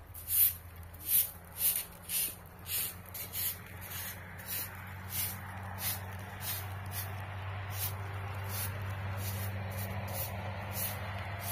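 Short hand broom sweeping dirt ground in quick brushing swishes, about two strokes a second, loudest in the first few seconds and fainter after. A steady low hum runs underneath.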